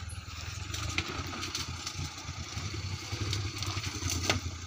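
Small mini truck's engine running at low revs as it works through deep mud, with a few sharp clicks over it, the loudest near the end.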